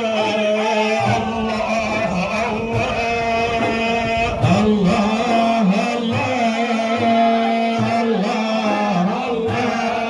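Sufi dhikr chanting: men's voices holding a steady low chant under a lead singer's wavering religious melody, with faint regular beats underneath.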